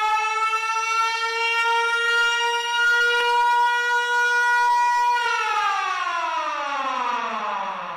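Warning siren sounding one long wail that holds a steady pitch, rising slightly, for about five seconds, then glides down in pitch near the end.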